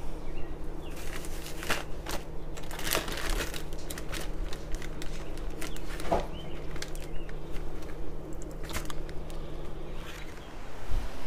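A plastic zip-top bag holding crushed saltine crumbs crinkling in short rustles as it is handled to coat morel mushrooms. A steady low hum runs underneath and stops near the end.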